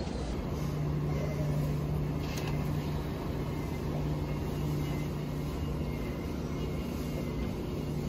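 A steady low motor hum, one even droning tone with faint overtones over a little background noise.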